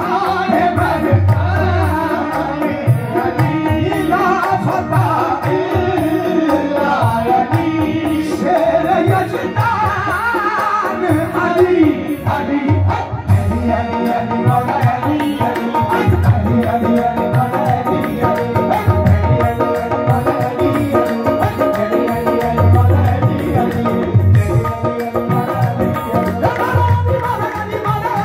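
Qawwali music played live through a sound system: tabla and dholak drumming in a steady rhythm under harmonium and men's singing.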